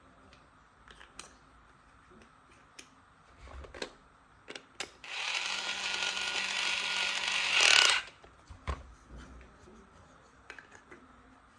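Small electric drill running for about three seconds, a steady whir that rises at the end and cuts off. Plastic handling clicks and taps come before and after it.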